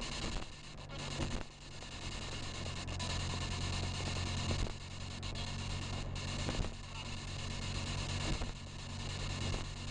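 Spirit box radio sweeping through stations: a steady hiss of radio static, broken by brief dropouts several times, over the low hum of the car driving on the highway.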